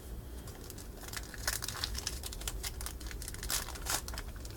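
A baseball card pack wrapper crinkling as it is handled and torn, with a dense run of irregular crackles starting about a second in.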